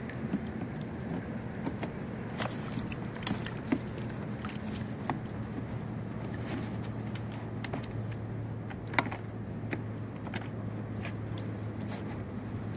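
Scattered small knocks, clicks and water splashes as the inner-tube kayak outriggers and their PVC arms are handled at the hull, over a steady low hum.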